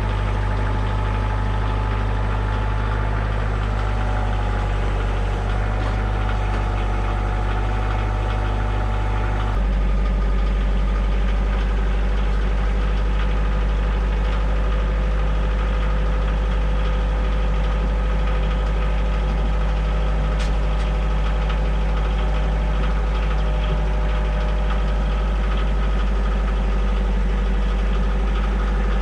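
Diesel engine of a Kioti DK40se tractor running steadily. About ten seconds in, the sound shifts abruptly to a deeper, slightly louder drone.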